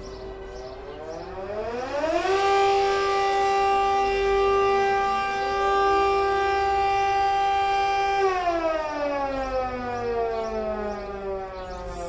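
Homemade mechanical air raid siren with 3D-printed rotor and stator, heard from about 50 yards, winding up over about two seconds to a steady G4 note. It holds the note for about six seconds, then winds down slowly. Other civil defense sirens being tested sound faintly behind it.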